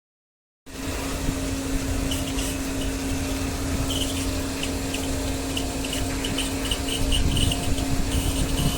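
An electric motor running steadily with a strong hum and a low rumble, cutting in suddenly about a second in.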